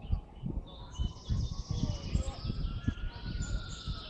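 Wind buffeting the microphone in irregular low gusts, with small birds chirping in the forest. Under it a faint long whine slowly rises and then falls.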